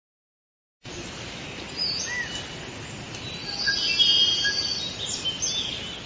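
Forest ambience of several birds calling over a steady background hiss, starting about a second in: assorted chirps, short gliding whistles and a busy run of trilling whistles in the middle.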